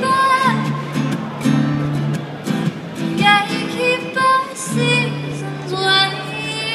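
Acoustic guitar strummed in held chords, with a woman singing over it.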